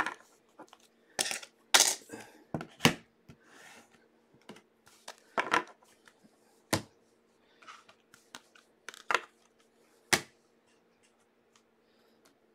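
Rigid plastic top loaders holding trading cards clacking against one another and onto a wooden desk as a stack is sorted and set down, in irregular sharp clicks.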